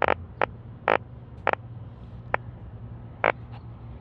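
A yellow drum (sujogi croaker) out of water croaking: about six short, pitched croaks at irregular gaps, the first two the loudest and the later ones fainter. It makes them by drumming its swim bladder with its belly muscles.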